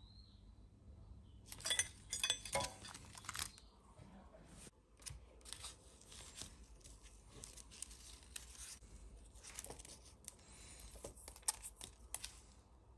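Hands at work on a model-kit assembly: a loud burst of tearing and rustling about two seconds in, then scattered clicks and rustles of small parts and packaging being handled.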